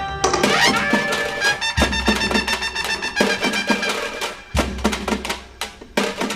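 Instrumental music: a busy run of quick struck notes over a few held tones, with a low bass note coming in twice.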